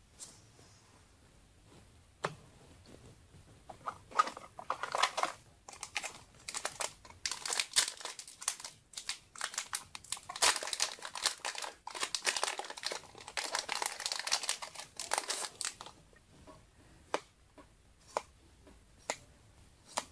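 A Yu-Gi-Oh! booster pack's foil wrapper being torn open and crinkled: a run of rustling crackles from about four seconds in to about sixteen seconds, with a few sharp clicks before and after.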